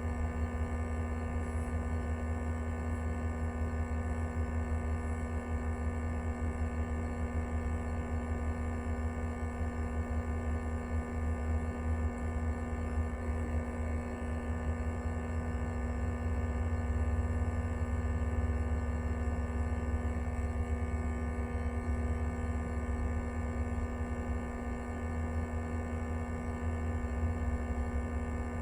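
Steady background drone inside a train carriage: a low rumble under a constant hum with several steady tones, unchanging throughout.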